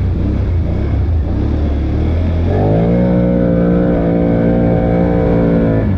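ATV engine running low through muddy water, then revving up a little past halfway and holding a steady higher pitch before backing off right at the end.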